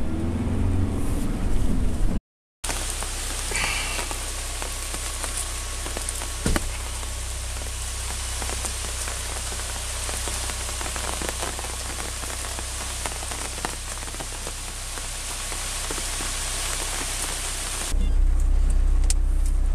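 Steady hiss of rain falling. It is framed by a vehicle driving on a wet dirt road: a low engine and tyre rumble that stops at a sudden cut about two seconds in, and comes back louder at a cut near the end.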